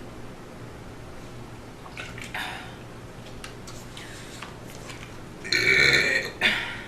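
A woman burps loudly about five and a half seconds in: a burp of about a second, then a short second burp. The burping is brought up by a fizzy drink.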